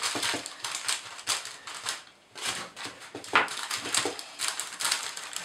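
Baking paper crinkling and rustling in irregular bursts, with soft taps, as hands press bread dough into a paper-lined loaf tin. There is a short lull about two seconds in.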